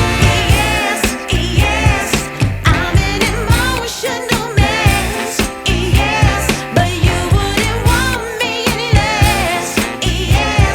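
Background music: a song with a sung vocal line over a steady beat.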